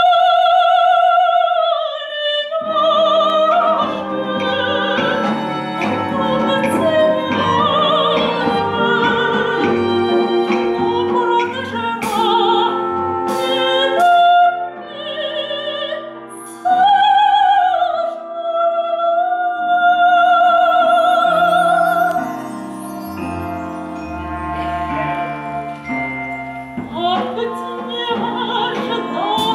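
A woman singing operetta with a wide vibrato on held notes, unaccompanied for the first couple of seconds, after which an instrumental accompaniment comes in and plays under her singing.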